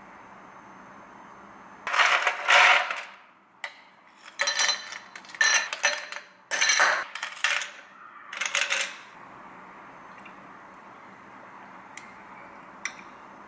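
Ice cubes scooped from an ice bin with a plastic scoop and dropped into a glass jar, clattering and clinking in about five bursts.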